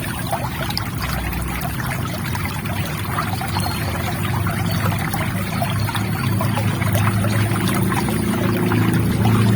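River water trickling and flowing: a steady rush with many small splashes, growing a little louder in the last few seconds.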